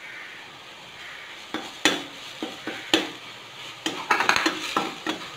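Metal spoon stirring and scraping onion paste sautéing in oil in a stainless steel kadai, over a faint sizzle. Several sharp taps of the spoon against the pan stand out, with a quick cluster of them about four seconds in.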